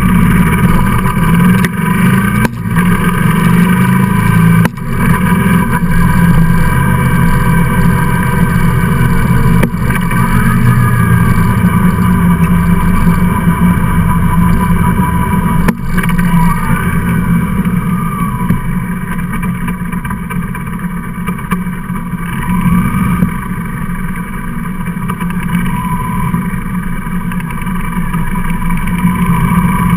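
Motorcycle engine running steadily at road speed under heavy wind rush on the microphone, with a few brief sudden drops in level in the first five seconds and once about halfway through.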